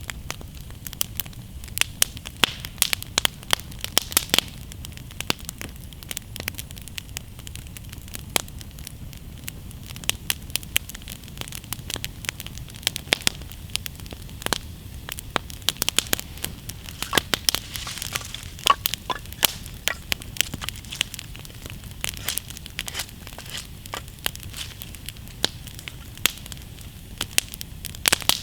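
Wood campfire crackling steadily, with frequent irregular sharp pops.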